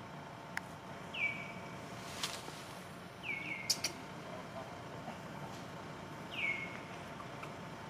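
Short, high-pitched animal calls, each dropping in pitch and then holding for a moment, heard about four times (two close together near the middle), over a faint steady background hum, with a few sharp clicks.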